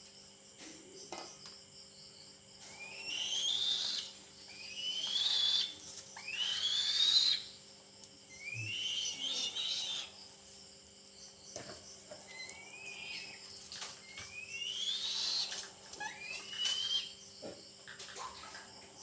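Young eagle's begging calls: a shrill whistle that rises in pitch, repeated about every one to two seconds while it is being fed.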